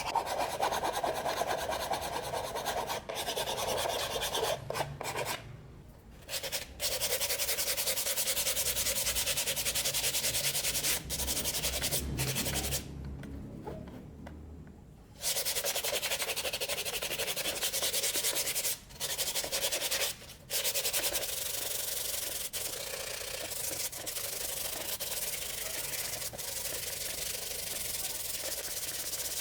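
Sandpaper rubbing against a hard surface in steady rasping stretches, broken by a few short gaps.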